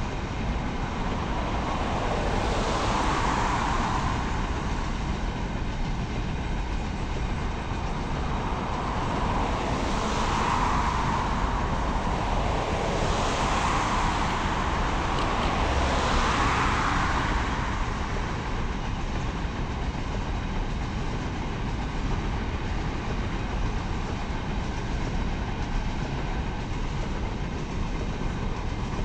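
Steady rolling rumble of a train hauled by a 3ES4K electric locomotive passing at a distance. Road vehicles going by in front swell up and fade away a few times, loudest in the first half.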